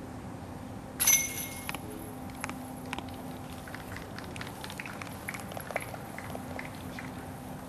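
A flying disc strikes a metal disc golf basket about a second in: one sharp metallic clang that rings for under a second. Scattered faint clicks and taps follow.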